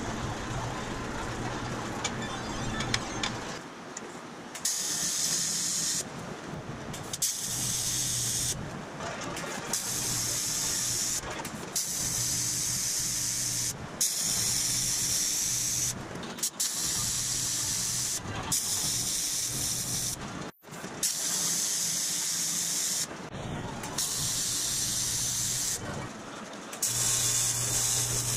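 TIG welding arc on thin aluminium sheet: a steady hiss with a low buzz under it. It comes in a string of short passes, each starting and stopping abruptly, beginning about five seconds in after a stretch of steady low hum.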